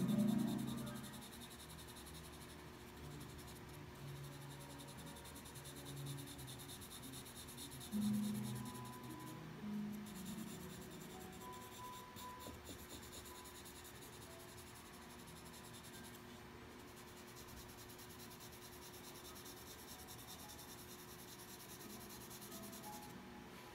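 Charcoal pencil scratching across toned drawing paper in steady shading strokes, pausing briefly every several seconds. Faint background music fades out in the first second, with a few soft low tones returning about a third of the way through.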